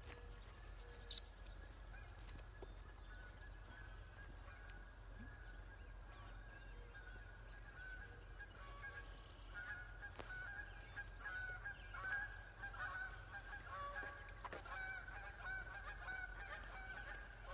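A flock of geese honking, faint at first, with many overlapping calls growing busier in the second half. A single short, sharp high-pitched peep stands out about a second in.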